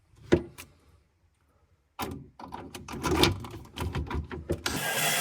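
Plastic clicking, knocking and rattling as the fridge's plastic damper cover is fitted and screwed in. A steadier stretch of noise starts near the end.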